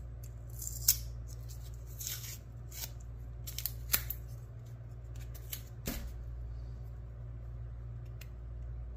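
Handling noise from a padlock and its packaging being turned over in the hands: a few sharp clicks and short rustling scrapes over a steady low hum.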